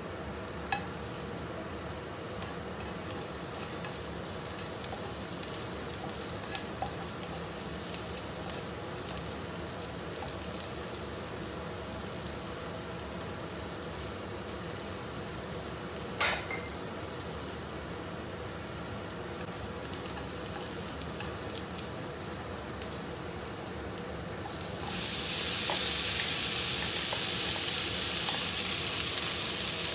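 Chopped onion frying in oil in a nonstick wok: a steady sizzle with scattered small pops and one sharper click partway through. About 25 seconds in, the sizzle jumps much louder and hissier as chopped imitation crab sticks hit the hot pan.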